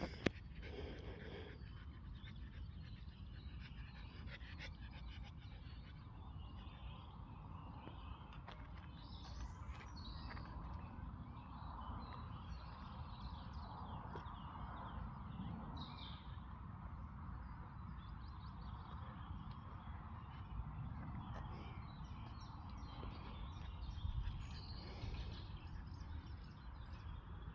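Outdoor ambience: a steady low rumble with scattered, faint bird chirps.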